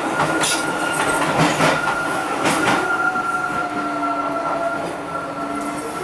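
DLR B2007 Stock train running, heard from inside the car, with a steady high-pitched squeal held through and a few sharp clacks in the first half as the wheels cross points on curving track.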